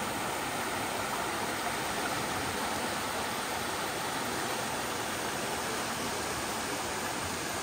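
Stream water rushing and splashing over rocks and down small cascades into pools, a steady, even rush.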